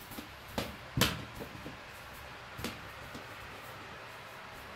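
Hollow knocks and thumps of a big latex balloon being batted and bumped about. The loudest comes about a second in, with a few lighter knocks after.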